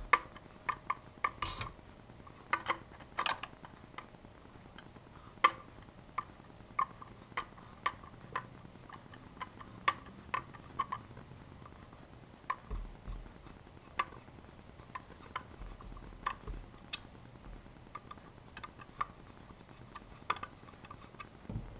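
Screwdriver backing out the screw of a non-collapsible AR-15 buttstock: scattered sharp metallic clicks and light scrapes, irregular, about one or two a second.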